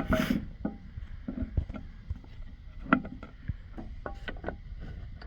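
Scattered metallic clinks and knocks, some briefly ringing, from U-joint parts and tools being handled, with a short rustling burst at the start.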